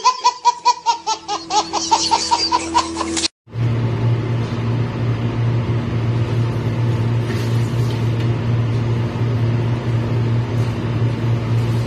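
A baby laughing in quick, rhythmic peals for about three seconds, cut off abruptly. Then a steady low hum.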